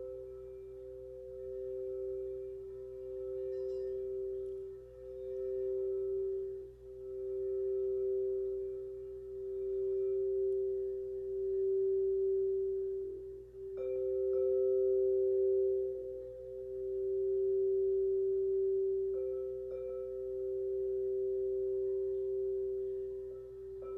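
Quartz crystal singing bowls ringing in two steady, overlapping tones, one low and one a little higher, swelling and fading in slow waves every two seconds or so. A bowl is struck afresh about 14 seconds in and again around 19 seconds.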